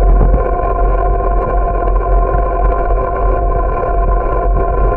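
Steady wind rumble on the microphone of a camera carried on a moving bicycle, with a constant hum of several steady tones over it.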